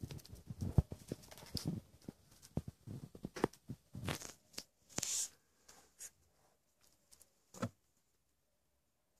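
Scratchy rustling on a fabric blanket close to the microphone, with many scattered clicks and knocks, as small kittens move about on it; it dies away after about seven and a half seconds.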